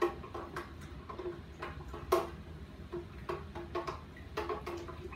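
A spoon clinking against the inside of a glass pitcher while stirring liquid: a run of light, irregular clinks, about two or three a second, with one louder clink about two seconds in.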